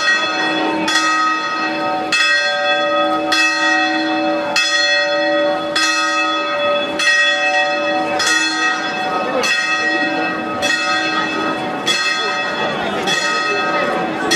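Church bells ringing, struck steadily about once every second and a bit, each stroke ringing on with long, overlapping tones.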